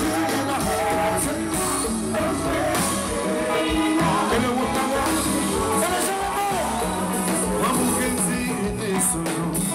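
A konpa band playing with a lead vocal, over a steady bass and percussion groove.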